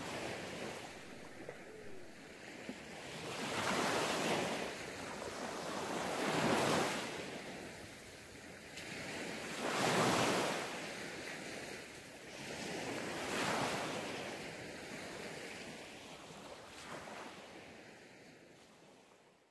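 Sea waves breaking on a sandy beach, the surf swelling and washing back about every three seconds. The sound fades out near the end.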